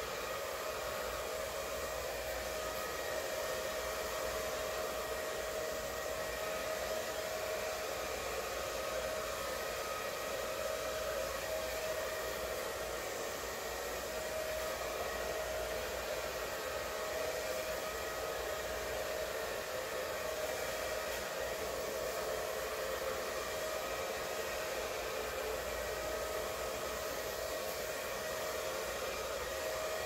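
Handheld hair dryer running steadily: a constant rush of air with an even motor whine that holds one pitch throughout.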